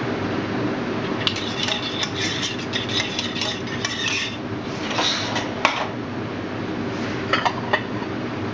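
A metal spoon stirring and scraping chickpea cream with olive oil in a small stainless steel saucepan, clinking against the pan's sides for a few seconds. A few separate sharp clinks and knocks follow near the end, over a steady background hum.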